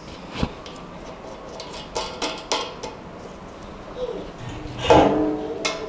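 Scattered clicks and clinks of an IKEA MACKAPÄR shoe rack's white steel leg tube and fittings being handled and pushed together during assembly, with a louder clank that rings briefly about five seconds in.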